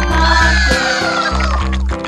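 Upbeat children's background music with a bass line that changes about twice a second and a melody line that slides slowly downward.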